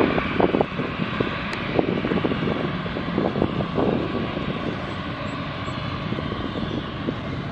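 Jet airliner engines: a steady rushing noise that eases a little over a few seconds.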